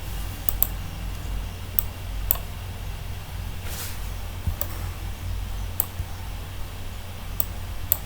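Scattered sharp clicks of a computer mouse, some in quick pairs, over a steady low hum.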